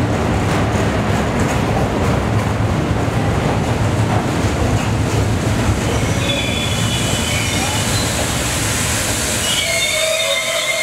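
A New York City Subway R42 train running close past a station platform with a steady rolling rumble. From about six seconds in, high brake and wheel squeals in several pitches come in as the rumble fades, the train slowing.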